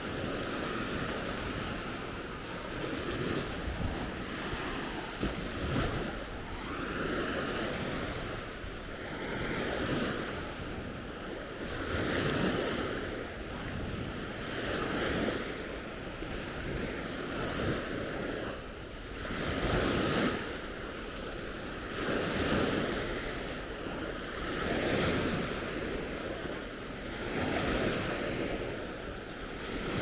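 Small Baltic Sea waves breaking and washing up on the beach, swelling about every two and a half seconds, with some wind on the microphone.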